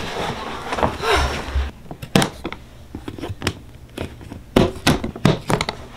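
Hard plastic Pelican 1650 case bumping and scraping, with a few low thuds, for the first second and a half. Then a run of sharp clicks and snaps, about eight over four seconds, as its latches are worked open.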